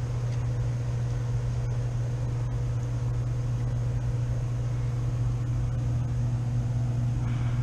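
Steady mechanical hum of rooftop HVAC equipment running, a constant low drone with a faint higher tone; a second faint tone joins after about six seconds.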